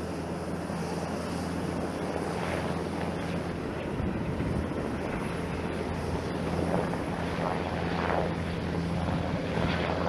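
HH-60 Pave Hawk helicopter flying past: its twin turboshaft engines and rotor make a steady low drone that grows slightly louder near the end.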